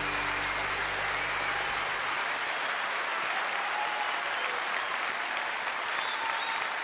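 The last sustained notes of a song fade out about two seconds in, leaving an audience applauding with a few cheers, as at the end of a live recording.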